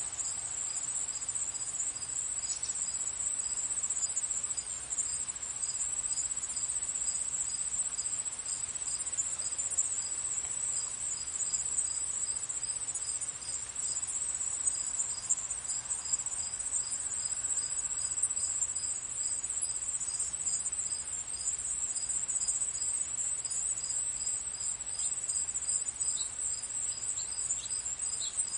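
Crickets chirping: a steady, high-pitched trill, with a second, slower chirp pulsing evenly about two to three times a second, and a few brief high chirps near the end.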